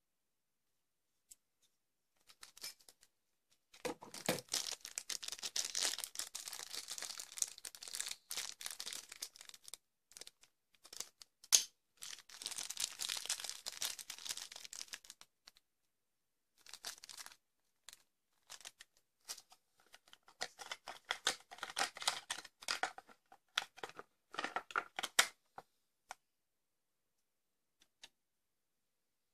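Clear plastic zip-lock bags being handled and crinkled, with the small hardware inside rattling, in several irregular bursts of rustling broken by sharp clicks. The loudest is a single sharp click a little before halfway.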